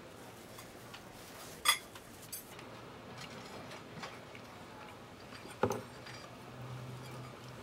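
Cutlery clinking against plates at a table: a few sharp clinks, the loudest about a second and a half in and another a little before six seconds, over a low steady hum that grows near the end.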